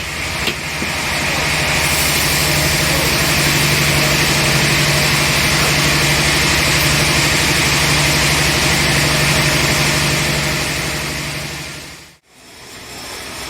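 Sawmill machinery running steadily: a low mechanical hum under a loud high hiss, fading and dropping out briefly near the end before starting again.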